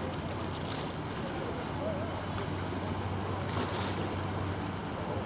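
Small passenger motor launch passing under way: a steady low engine drone over waves lapping, with wind on the microphone.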